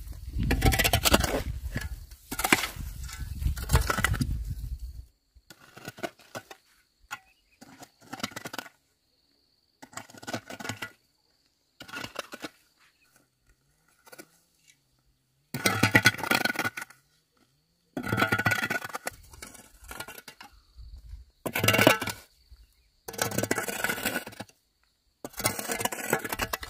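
Burned debris being cleared: repeated bursts of clattering, scraping and clinking, each a second or two long, with short silent gaps between.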